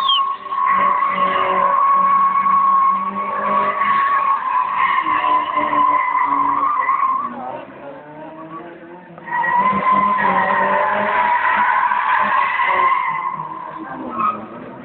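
Tofaş 131's rear tyres squealing in a long, steady high-pitched screech as the car drifts in circles on pavement, with its engine revving underneath. The squeal breaks off for about two seconds midway, picks up again and fades near the end.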